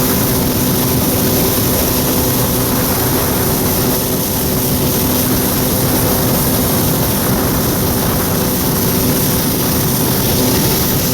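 Kawasaki 650SX jet ski's two-stroke twin engine running at a steady speed, with a dense rushing noise over it.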